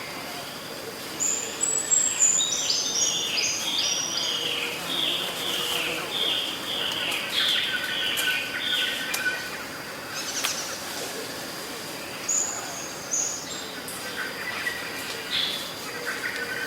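Outdoor nature ambience: a songbird sings a long run of quick chirps that step down in pitch, then a shorter phrase about twelve seconds in, over a steady high insect drone.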